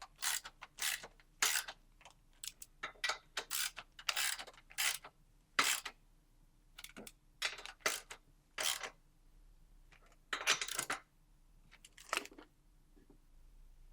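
Ratchet wrench clicking in short irregular runs as the exhaust coupler bolts are tightened down to final torque.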